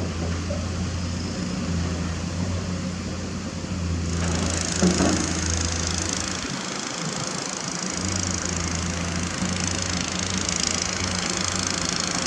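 Komatsu PC210 excavator's diesel engine running with a steady low drone while the machine works its bucket among rocks. There is a single knock just before five seconds in, and a steady hiss joins from about four seconds in.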